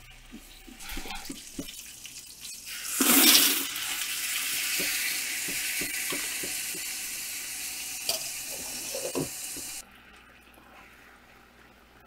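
Kitchen tap running water into a pot. It comes on suddenly about three seconds in, runs steadily, and is shut off abruptly near the end. A few light knocks of a spoon in an enamel pot come before it.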